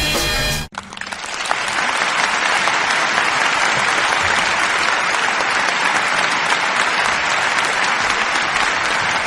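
Music cuts off abruptly under a second in, and a crowd's applause swells up and then continues steadily.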